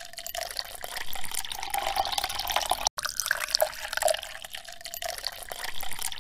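A thin stream of water pouring into the plastic bed of a toy dump truck, splashing and bubbling in the water pooled there. The sound breaks off for an instant just before halfway.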